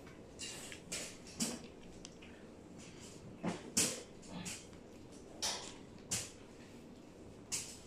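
A series of short rustles and rattles as a blanket is handled and laid into a black wire dog crate, with the crate's metal frame creaking and clinking.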